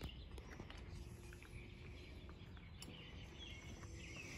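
Faint outdoor background with a few scattered bird chirps and some small, light clicks as plastic hand-guard parts are handled on a handlebar.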